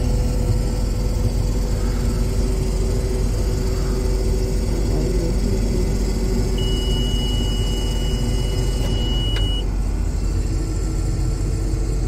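Combine harvester's engine running steadily, heard from inside the cab. A single steady high-pitched beep sounds for about three seconds past the middle, ending with a faint click.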